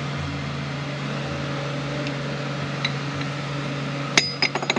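Steady low mechanical hum. About four seconds in it is broken by a few sharp metallic clinks as 10R80 transmission gear-train parts are lowered over the shaft into the case.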